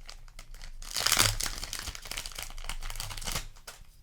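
A trading-card booster pack's wrapper crinkling as it is torn open, the loudest rip about a second in, then crackling handling that dies down near the end.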